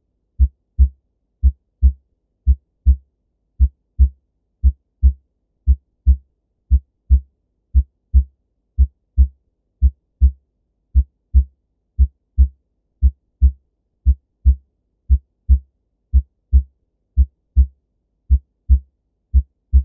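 Recorded normal heart sounds through a stethoscope: paired lub-dub beats (S1 then S2) about once a second, steady and regular, with nothing between the beats.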